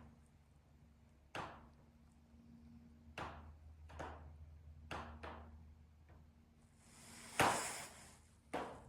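Sharp pops from a steel-framed sunroom's riveted structure as it expands in direct sun, about six irregularly spaced pops with the loudest near the end. A faint steady hum runs underneath.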